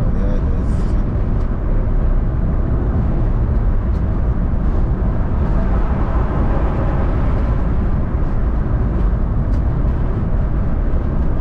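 Steady road noise inside a car driving at highway speed: engine and tyre rumble with wind noise. It swells a little around the middle as the car passes a heavy truck close alongside.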